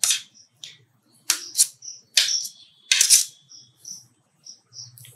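Kitchen knife cutting boiled, peeled potatoes on a steel plate: the blade knocks against the metal in about half a dozen irregular sharp clicks, the last of them about three seconds in. Faint short high chirps sound between the clicks.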